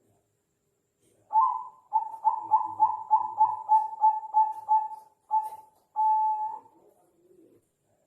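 Bangkok-strain zebra dove (perkutut) singing its cooing song. It gives an opening note, then a quick run of about a dozen coos at three or four a second, and ends on two longer drawn-out notes.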